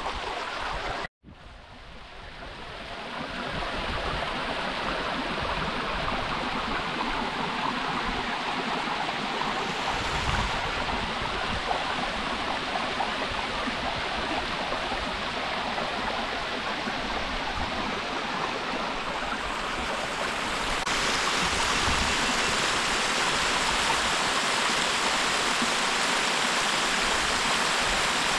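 Fast-flowing stream water rushing steadily. It cuts out briefly about a second in and fades back up, then turns louder and brighter about two-thirds of the way through.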